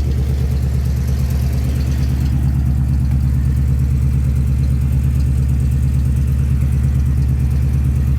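1996 Ford F-250's gasoline engine idling steadily through freshly installed Flowtech headers and a homemade exhaust with aftermarket mufflers; the exhaust is super quiet.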